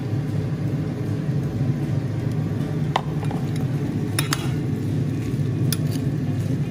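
Metal spoon clinking a few times against a ceramic bowl as fried shrimp are tossed in a creamy sauce, over a steady low hum.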